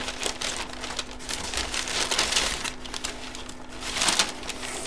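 Brown paper packaging rustling and crinkling as a hand handles it and draws it out of a cardboard box, in irregular bursts, over a faint steady hum.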